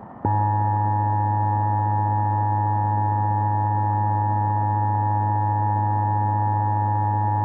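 Emergency Alert System attention tone: a loud, steady chord of held tones over a strong low hum. It starts about a quarter second in and stays unchanged.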